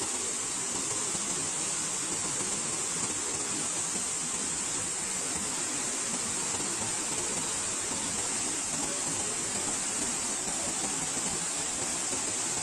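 Waterfall pouring down stepped rock cascades: a steady, unbroken rush of water with a strong high hiss.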